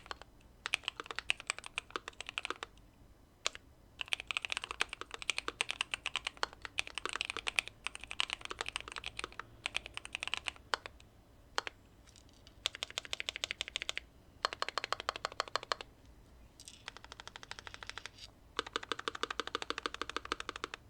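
Typing on a Keychron Q2 aluminium mechanical keyboard with factory-lubed Pearl Lemon switches, tape mod and case foam. The keys clack in fast runs of a second or two, with short pauses and a few single keystrokes in between.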